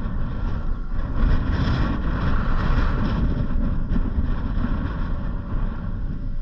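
Steady low rumble of a vehicle driving, with a hiss of road noise that swells for a couple of seconds about a second in.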